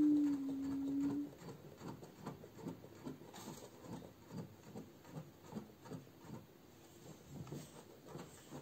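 Light, irregular tapping and scraping of fingers handling the plastic casing of a Mademoiselle Toga Cut It All die-cutting machine. A brief steady tone opens the sound and lasts about a second.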